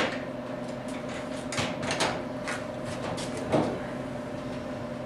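Scattered clicks and metallic clunks of a hand-operated standing seam seaming tool being fitted and locked onto the seam of a metal roof panel, the loudest about three and a half seconds in. A steady low hum runs underneath.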